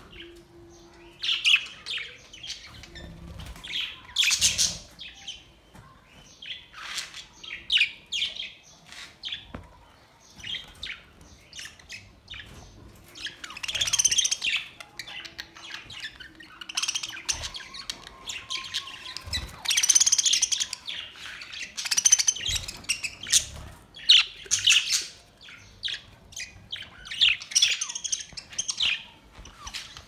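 A flock of budgerigars chattering, with many short, high chirps that come in repeated bursts.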